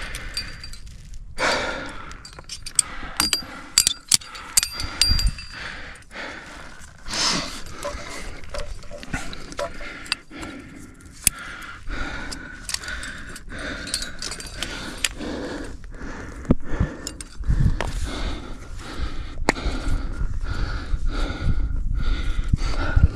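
Metal climbing gear clinking and knocking in irregular clusters, with a few bright metallic rings a few seconds in, over a climber's heavy breathing.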